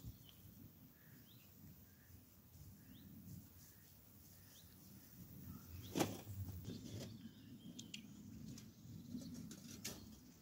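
Faint, short bird chirps in the background, then a sharp click about six seconds in, followed by rustling of someone moving through tall grass.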